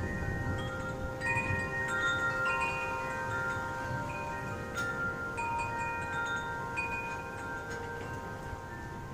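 Wind chimes ringing in the wind, several tubes struck again and again so that overlapping notes sustain and fade, with the densest strikes about a second in and again around the middle. A low, even rumble of wind runs beneath them.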